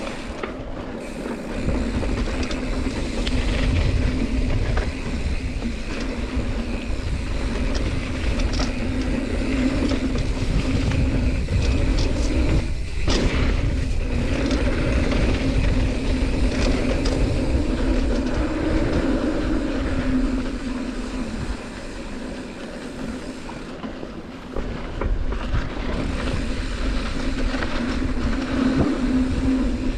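Giant Trance X2 full-suspension mountain bike being ridden down a dirt singletrack: steady tyre and wind noise with a low rumble, and scattered knocks and rattles from bumps on the trail.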